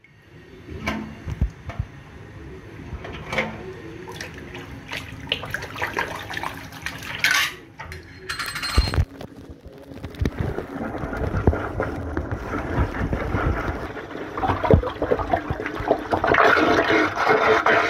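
Water in a stainless steel kitchen sink: splashing and knocking as a hand stirs it, then water swirling and gurgling down the drain in a whirlpool, growing louder over the last several seconds.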